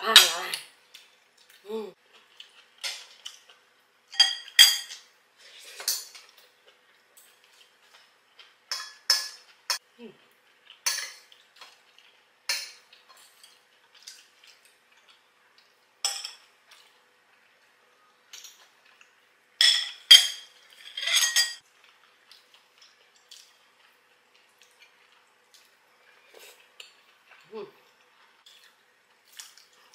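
Metal spoons and forks clinking and scraping against ceramic bowls and plates as food is served and eaten: scattered short, sharp clinks every second or two, with a louder run of them about twenty seconds in.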